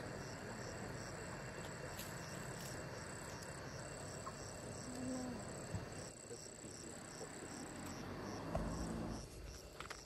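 Insects chirping in a forest chorus: a steady high trill with a second call pulsing about three times a second, over a low background hiss. A brief low rumble comes near the end.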